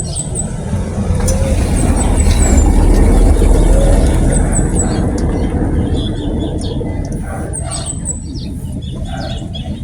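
A vehicle passing by: a low rumble swells to its loudest about three to four seconds in, then slowly fades. Small birds chirp in short, high runs several times over it.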